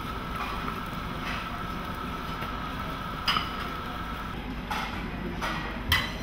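Wooden spatula scraping and knocking against a small frying pan a few times as an omelette is folded, over steady background kitchen noise.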